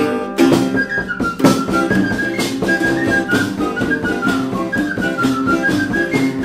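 Sicilian folk quadrille tune: a flute plays a quick, wavering high melody over the steady drone and rhythmic twang of a jew's harp (scacciapensieri).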